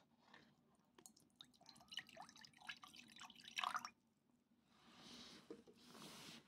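Juice glugging and splashing as it is poured from a plastic bottle into a ceramic bowl, with quick bubbly clicks and short rising gurgles; the pour stops about four seconds in. Two soft rustling noises follow near the end.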